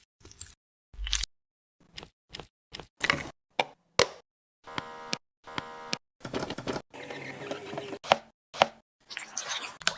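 Groceries and containers being handled and set down: a string of short knocks and clicks, a couple of ringing clatters about halfway through, and rustling, as of plastic packaging, in the second half.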